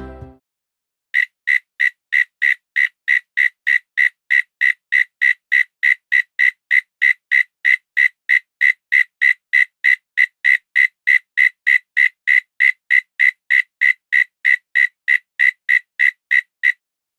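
A steady run of short, high chirps, about three a second, starting about a second in and stopping shortly before the end.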